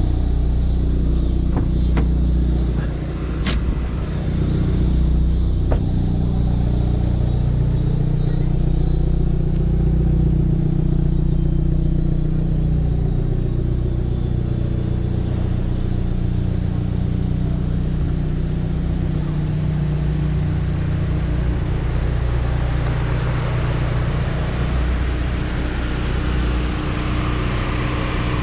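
Hyundai Veloster N's turbocharged 2.0-litre four-cylinder engine running steadily through its exhaust. The engine note rises and falls a little in pitch midway, and a few sharp clicks come in the first few seconds.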